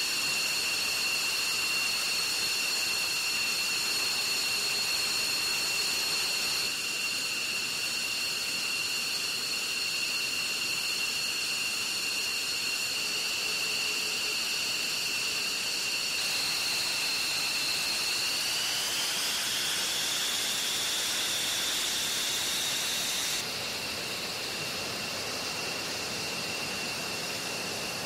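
F-15E Strike Eagle jet engines running on the ramp: a steady high-pitched turbine whine over a loud hiss. About two-thirds of the way in, the whine rises in pitch as the engines spool up a little.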